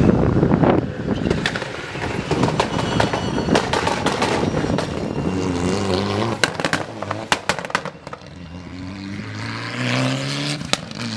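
Mitsubishi Lancer Evolution rally car's turbocharged four-cylinder engine working through a chicane on a wet stage. The revs rise and fall between gear changes, with many sharp exhaust cracks and pops off the throttle. The engine pitch climbs again near the end as the car accelerates away.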